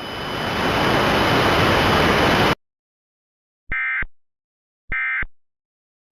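A rush of static hiss swells for about two and a half seconds and cuts off abruptly. After a second of silence come two short, buzzy bursts of EAS/SAME digital data tones about a second apart: the end-of-message (NNNN) signal that closes an Emergency Alert System broadcast.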